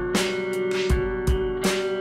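Background music: guitar over a steady beat of about two and a half strikes a second, with one note held throughout.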